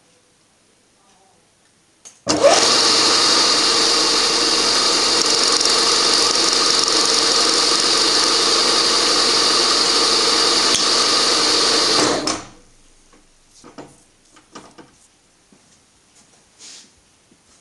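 Milling machine spindle starting up and running steadily with a boring head turning, then spinning down and stopping about ten seconds later. A few light clicks and taps follow.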